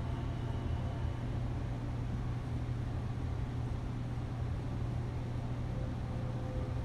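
Steady low hum with a faint hiss over it, with no distinct events; faint high tones come and go near the end.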